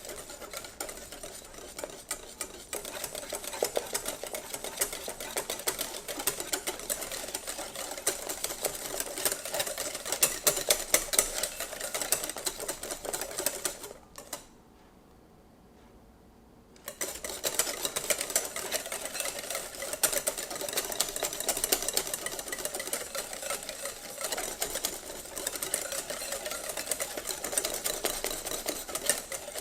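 Fast, continuous clicking and rattling of a utensil beaten by hand against a bowl, whipping coffee, sugar and hot water into dalgona foam. It stops for about three seconds near the middle, then resumes.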